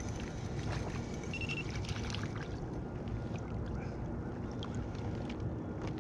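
Water lapping and sloshing against the hull of a sit-on-top fishing kayak, with scattered small clicks and knocks from the angler handling rod and gear while landing a fish.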